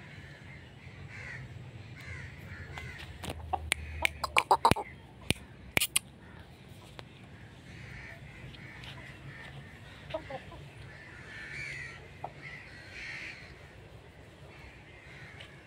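Crows cawing on and off, harsh calls spread through the whole stretch. Between about three and six seconds in comes a quick cluster of sharp clicks or knocks, the loudest sounds here.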